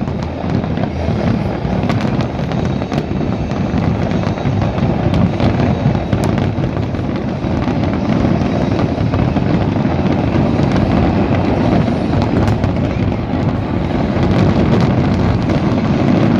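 Fireworks display: a dense, continuous barrage of bangs and crackling with no pauses.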